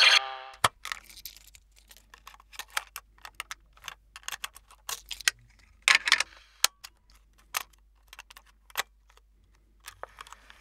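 Plastic microcassette cases clicking and clacking as hands sort through them on a wooden table. The sharp clicks come at irregular intervals, with a busier cluster of clatter about six seconds in.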